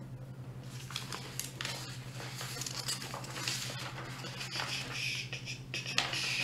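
Irregular rustling and crinkling with small clicks close to the microphone, getting busier towards the end, over a steady low electrical hum.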